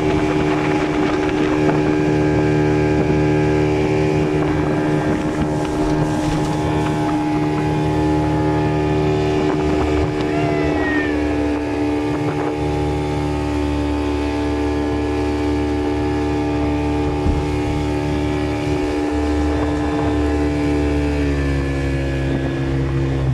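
Boat motor running steadily, its engine tone dropping slightly near the end, with wind buffeting the microphone.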